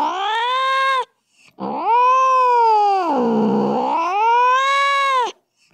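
Angry cat yowling in long drawn-out wails. One yowl ends about a second in, and after a brief pause another lasts several seconds, dropping in pitch in the middle and climbing again before it cuts off.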